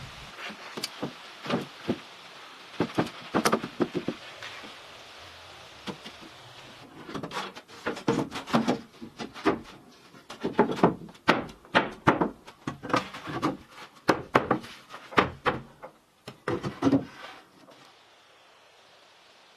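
A run of irregular wooden knocks and thumps, some single and some in quick clusters, like boards or wooden parts being handled and set down. A light hiss of rain lies under the first several seconds. The knocks stop shortly before the end.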